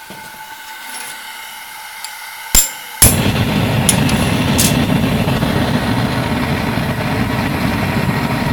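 Homemade propane forge burner, fed at about 4 psi: gas hissing faintly, a sharp striker click about two and a half seconds in, then the burner lights suddenly and runs with a loud, steady rushing roar of flame.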